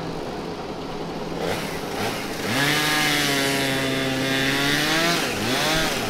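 Two-stroke chainsaw revving up to high speed about two and a half seconds in and held there. Its pitch dips and rises again near the end as the throttle is eased and opened.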